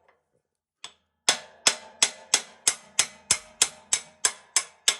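Hammer tapping on a metal bolt to drive a part out of it: one light tap about a second in, then steady ringing metal-on-metal strikes at about three a second.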